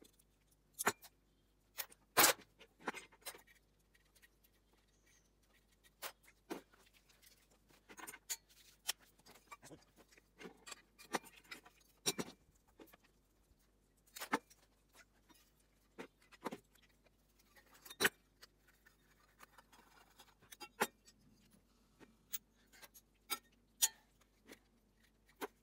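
Irregular clicks, clinks and knocks of small metal table-lamp parts and hand tools being handled and set down on a wooden work table while a lamp is taken apart.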